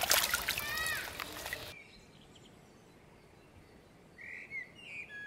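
Water splashing and sloshing as hands grope through shallow muddy water, with bird chirps over it. The sound cuts off abruptly a little under two seconds in, leaving near silence broken by a couple of faint bird chirps near the end.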